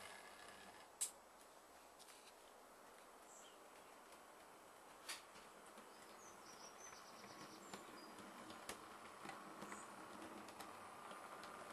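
Near silence: a faint steady hiss with two sharp clicks, one about a second in and a softer one about five seconds in.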